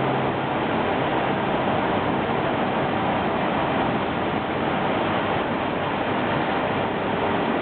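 Sumitomo Shibaura grinder running, a steady, even machine noise with no distinct strokes or changes.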